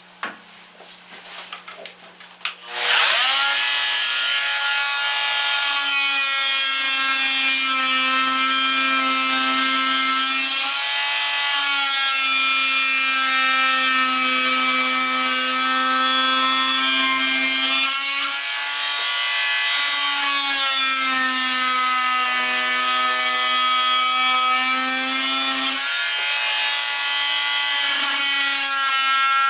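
Oscillating multi-tool switched on about three seconds in and cutting into a yellow-birch vase rim: a steady high buzz whose pitch dips briefly several times under load.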